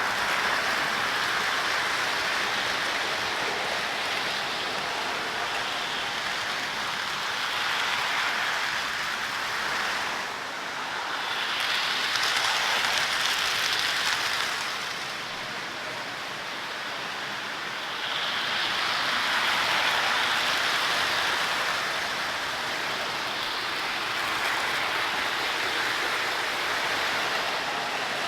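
O gauge model train running on its track: a steady, hissing rumble of metal wheels and motor that swells louder twice as the train passes close by.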